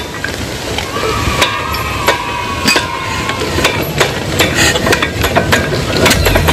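An engine being hand-cranked with a crank handle: irregular metallic clanks and knocks, then the engine catches about six seconds in and runs with a low steady throb.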